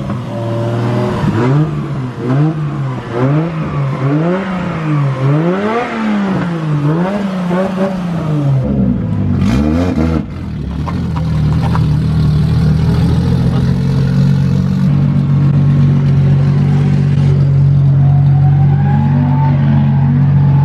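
Drift car's engine revving up and down over and over for about eight seconds, then, after a short break, running at a steady pitch.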